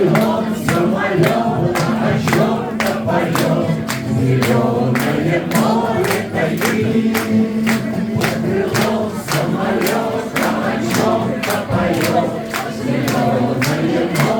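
Music with a steady beat: an instrumental passage of a song with choir-like voices, no clear words.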